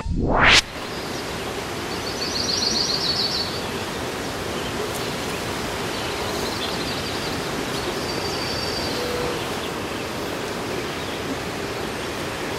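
Steady outdoor ambience, an even hiss, opened by a quick rising swoosh transition effect. It carries a few faint, short, high trills about two seconds in and again near eight seconds.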